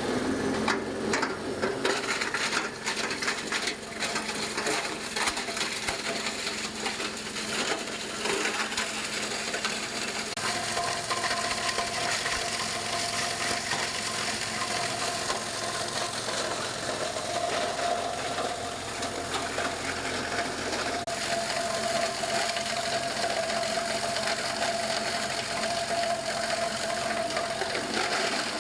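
Small plastic shredding machine running, with rattling and cracking, densest in the first few seconds. A steady whine joins about ten seconds in.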